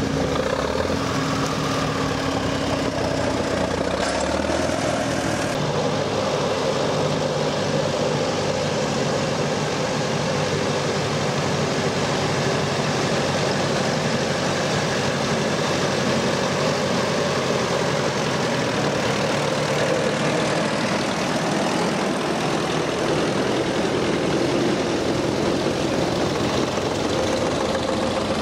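Engines of old farm tractors running steadily as several drive past one after another, the engine note shifting as each one goes by.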